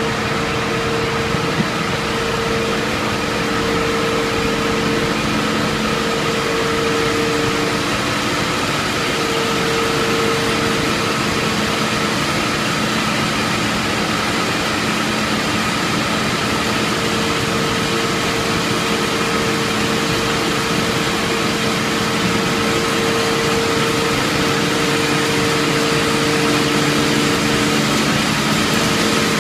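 HDPE raffia tape stretching line and its bobbin winders running: a steady machine whir with a few steady hum tones over it.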